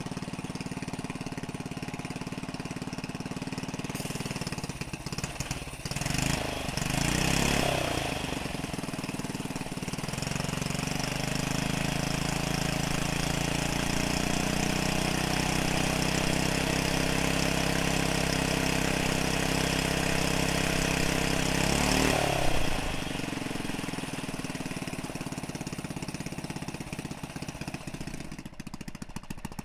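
Vintage Briggs & Stratton single-cylinder engine on a Fox Sprite minibike, fitted with a newly added Tecumseh carburettor, running on a stand. It idles, is revved up about six seconds in, then runs at a higher speed for several seconds. A second quick rev about 22 seconds in brings it back down to idle, and it runs unevenly near the end.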